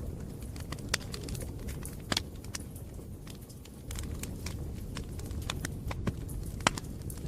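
Bonfire burning with wood crackling: sharp pops and snaps at irregular intervals over a steady low rumble of the flames.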